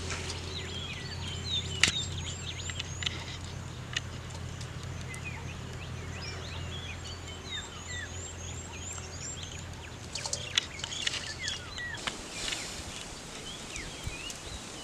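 Several birds chirping and calling, including a quick repeated series of high chirps, over a low steady hum that stops about twelve seconds in.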